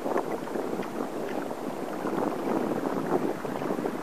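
Water splashing and lapping irregularly against the hull of a sailing kayak under way, with some wind noise on the microphone.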